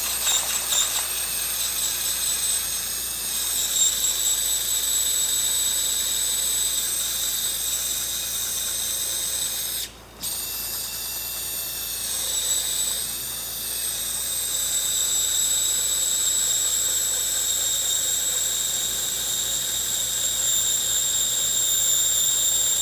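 Battery-powered surgical drill spinning a bone reamer down over a guide post on the femoral head, cutting the top of the head. It makes a steady high-pitched whine that cuts out for a moment about ten seconds in and then starts again.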